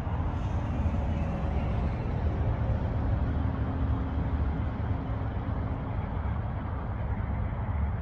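Wind buffeting the microphone: a steady low rumble that flutters in loudness.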